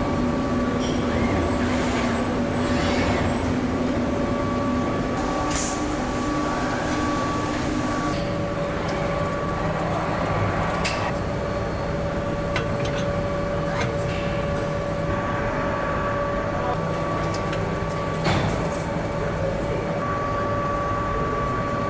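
Assembly-line machinery ambience: a steady drone with two steady whining tones, broken by scattered sharp clicks and a slightly louder knock near the end as metal fixtures and parts are handled.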